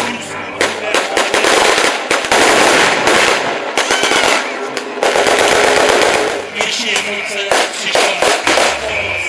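Rapid blank gunfire from WWII-era rifles and automatic weapons in a battle reenactment: a string of sharp shots that twice runs together into dense continuous firing lasting a couple of seconds.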